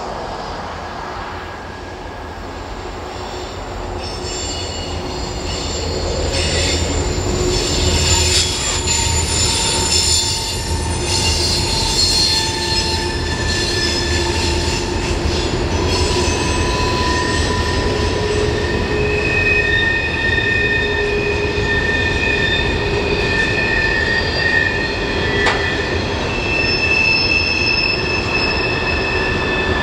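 Freight train rolling past, led by a pair of SD40-3 diesel locomotives: a low rumble builds over the first several seconds, then the wheels squeal with several steady high tones at once for the rest of the time.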